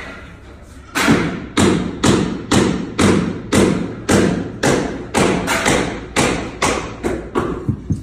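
A steady run of about fifteen heavy thuds, roughly two a second, each ringing out briefly.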